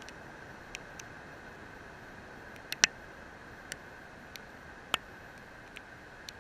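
Steady hiss with a faint high whine from a landed quadcopter's onboard camera, its rotors not running, broken by scattered sharp ticks. The loudest tick comes about three seconds in and another strong one near five seconds.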